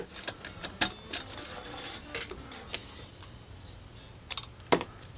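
Scattered light clicks and rustling as the stitched suede is handled and taken from the sewing machine, then a couple of sharp snips of scissors cutting the thread near the end.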